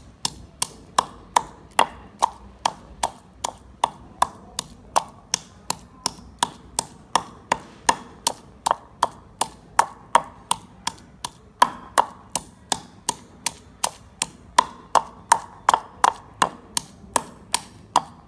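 Wooden pestle pounding red chilies and garlic in a wooden mortar: steady, sharp knocks at about two and a half a second.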